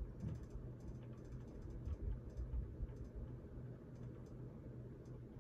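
Dull, low knocking on a bedroom wall from an unseen source: one knock just after the start, then several more thuds about two to three seconds in.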